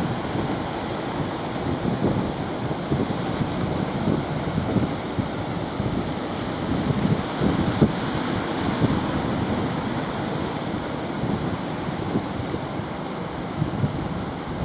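Surf breaking and washing onto the beach, with wind buffeting the microphone.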